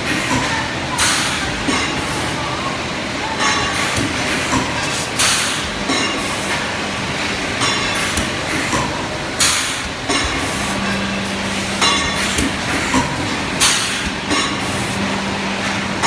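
Plastic cup making machine running, with a short burst of noise about every four seconds and light clatter of clear plastic cups sliding into the stacking rails. A steady low hum joins about ten seconds in.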